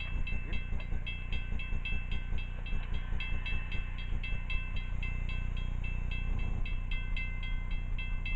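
Railroad grade-crossing bell ringing in quick, even strikes, about four a second, over a steady low rumble. The crossing signals are active for an approaching CSX freight train.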